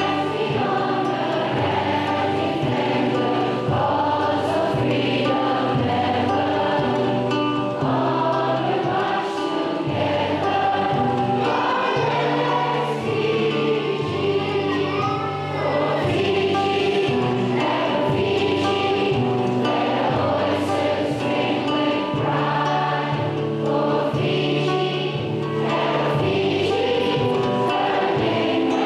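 A choir singing a slow piece in full, sustained chords over a steady low bass.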